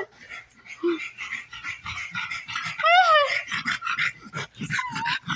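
Dog panting in quick, rhythmic breaths, with one short rising-and-falling call about three seconds in.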